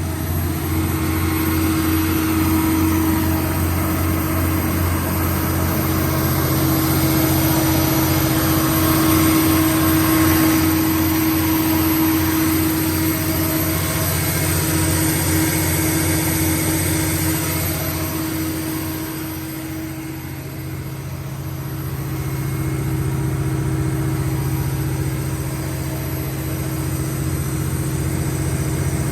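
The Cummins QSB7-G5 six-cylinder diesel engine of a 150 kW standby generator set running at a steady speed. The level dips briefly about two-thirds of the way through, then comes back.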